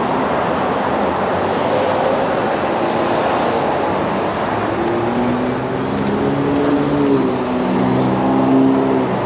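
Steady traffic noise. From about five seconds in, a city bus pulls up, adding a low engine drone in several steady tones and a thin high squeal near the end.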